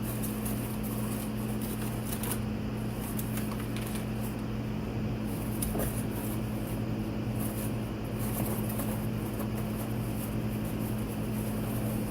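Packing material rustling and crinkling as a box is unpacked by hand, with scattered small crackles. A steady low hum from an unseen appliance runs underneath.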